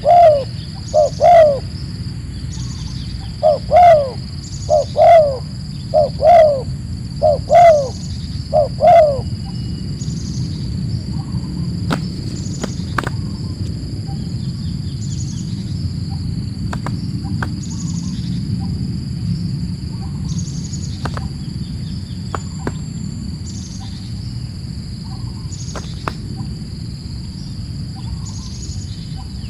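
A captive dove cooing, a string of low, falling coos during the first nine seconds, then it stops. A steady high insect drone continues throughout.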